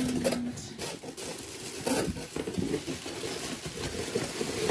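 Packaging rustling with small taps and clinks as a mailed box of jewelry pieces is handled and unpacked, with a sharp louder knock at the very end.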